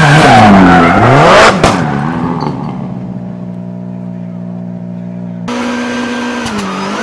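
Ford Fiesta rally car engine revving up and down hard while drifting, with tyre noise and a loud crack about a second and a half in as the wheel smashes against the wall. After that a steady low hum, and near the end a burst of glitchy static.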